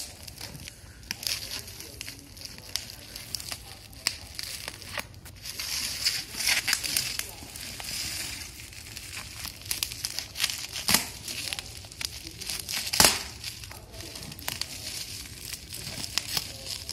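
Bubble wrap and plastic packing film being pulled and torn off a cardboard tripod box: steady crinkling and crackling with many small snaps, and two louder sharp snaps a couple of seconds apart past the middle.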